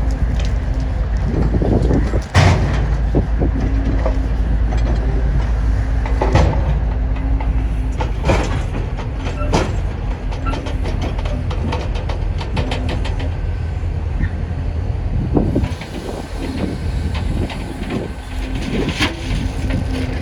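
Railroad work train of tie cars rolling past: a steady low rumble of wheels on rail, with sharp metallic clanks every few seconds. The rumble eases off near the end.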